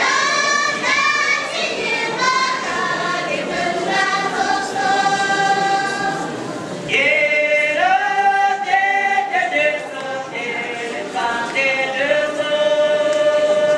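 A mixed choir of young men and women singing together, with long held notes.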